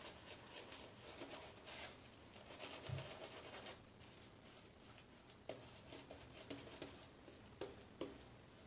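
Semogue badger-hair shaving brush working up soap lather, a faint scratchy rustle in quick irregular strokes, with a few light taps in the second half.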